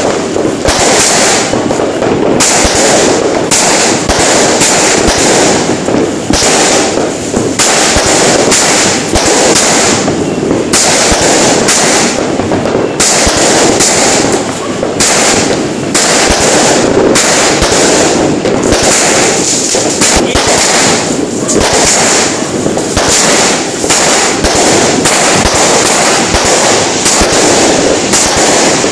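Fireworks going off in a dense, continuous barrage of rapid bangs and crackling.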